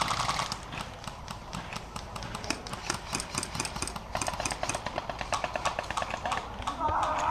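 Airsoft guns firing in rapid strings of light clicks, over a steady low rumble.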